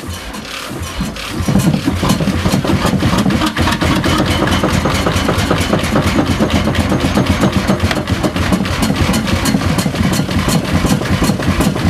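Old Van Rennes stationary engine running with a steady, even beat of firing strokes. About a second in, the running picks up and grows louder.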